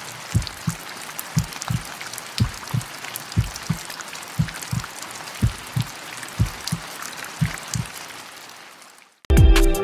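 Water dripping, with a plop about three times a second over a steady hiss of falling water. Loud electronic music cuts in near the end.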